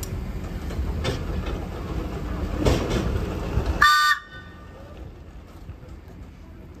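A short, loud toot on the horn of the North Eastern Railway electric railcar 3170 about four seconds in, a chord of several tones, giving warning before it departs. Before it there is a low rumble with a few knocks, and the rumble cuts off abruptly just after the toot.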